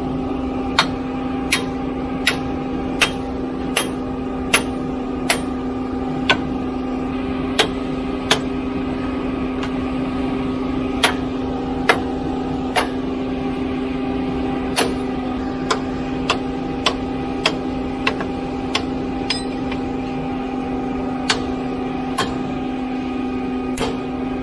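A hammer strikes the steel coupling clamp on a concrete pump truck's discharge pipe about two dozen times, in sharp metal blows at uneven intervals, knocking the clamp tight on the pipe joint. Underneath runs the steady drone of the pump truck's engine.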